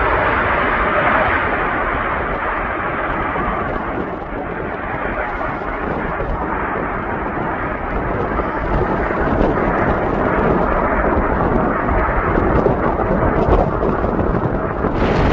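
Rumble of a passing airplane's engines. Its higher roar fades over the first few seconds, then a deep rumble rolls on and swells again, with wind buffeting the microphone.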